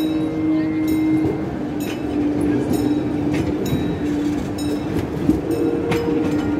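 Panoramabahn park train running, its wheels clicking over rail joints about once a second over a steady, slightly wavering tone.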